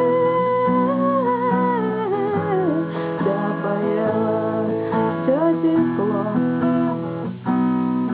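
Music: acoustic guitar strumming chords, with a held, wavering melody line over it.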